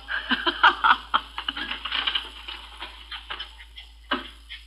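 Laughter following a joke, thickest in the first couple of seconds and then dying away.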